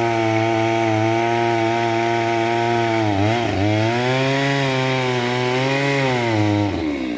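Gasoline chainsaw running at high revs while cutting wood. Its pitch bogs down sharply about three seconds in as the chain bites, picks back up, then drops away near the end.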